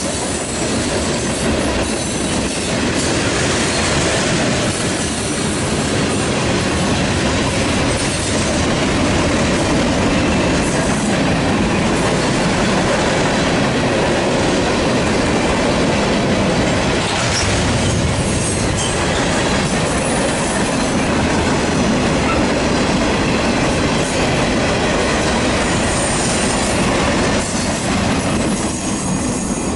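Freight cars rolling past at speed: a steady loud rumble and clatter of steel wheels on the rails. The sound eases slightly near the end as the last car goes by.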